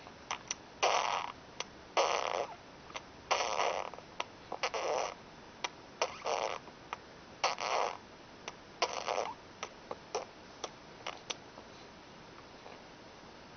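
A 4½-month-old baby making a string of odd, breathy, unpitched noises: about seven half-second bursts roughly a second apart, with short clicks in between.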